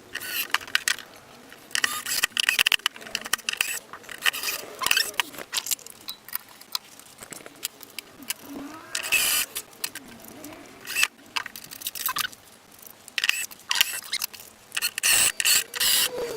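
Irregular clicks, knocks and short scrapes of parts and hand tools being handled on a workbench. A pigeon coos now and then, low and soft, in the middle and near the end.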